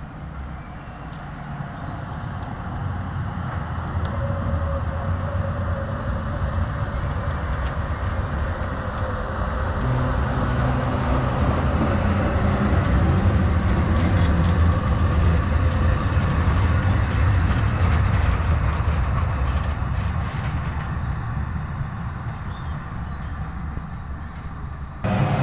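A tram passing by: its running noise and low hum grow louder to a peak about halfway through, then fade away.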